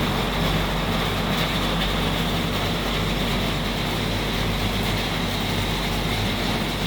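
Heavy rain and floodwater rushing along a street, a steady even noise with a low steady hum underneath.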